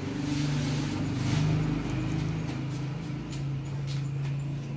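A steady low mechanical hum that wavers slightly in pitch, with faint clicks as wires and a connector are handled.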